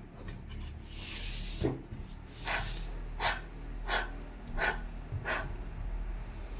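A person panting: a quick series of about six short, hard breaths at a steady pace of roughly one and a half a second.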